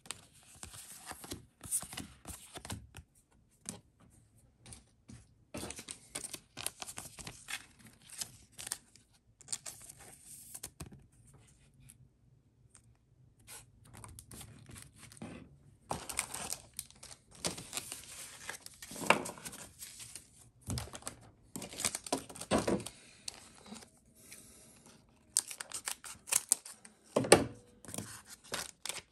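Foil booster-pack wrapper being torn open and crinkled by hand: intermittent rustling and ripping, with several louder sharp rips in the second half.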